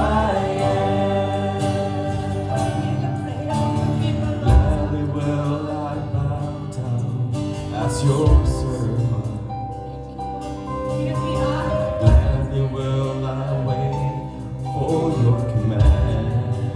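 Background music: a slow gospel worship song with singing over band accompaniment, and a low drum hit about every four seconds.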